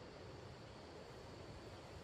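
Faint, steady outdoor background noise: an even hiss with a thin high tone running through it.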